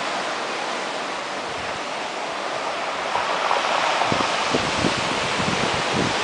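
Sea surf breaking and washing on the rocks at the foot of a cliff, a steady rush. From about four seconds in, wind buffets the microphone in short gusts.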